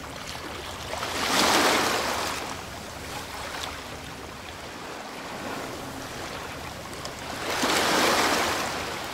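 Rushing water sound effect: a steady watery hiss that swells twice, about a second in and again near the end.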